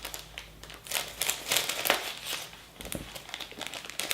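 Plastic candy bag of Bubulubu Mini crinkling as it is handled and opened, in irregular crackles with a sharper snap about three seconds in.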